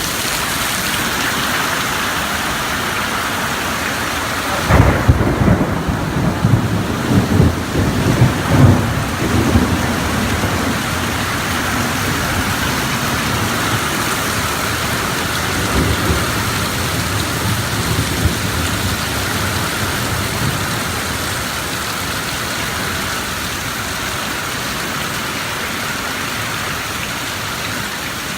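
Heavy rain falling steadily in a thunderstorm. About five seconds in, a thunderclap breaks into a crackling rumble that rolls on for several seconds, with fainter rumbles trailing off later.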